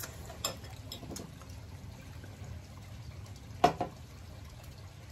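Sounds of eating and drinking at a table: a few light clicks of forks and plastic cups over a low steady background rumble, with a sharper double clink about three and a half seconds in.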